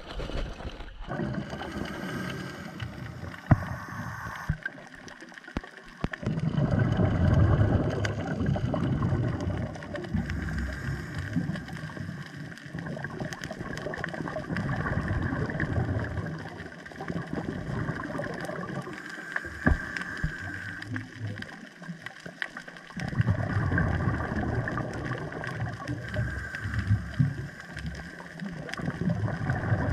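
Scuba diver's exhaled regulator bubbles, heard underwater: low bubbling swells of a few seconds each, with quieter stretches between and a faint steady underwater hum.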